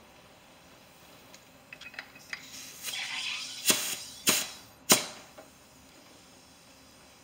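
A few light clicks, a short hiss of compressed air, then three sharp pops about half a second apart as a pressurized A/C flush nozzle is worked against a line fitting, spitting air and flush.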